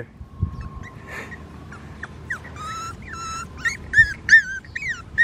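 Cavalier King Charles Spaniel puppy whining: a run of about ten short, high-pitched whimpers starting about two seconds in, several falling in pitch.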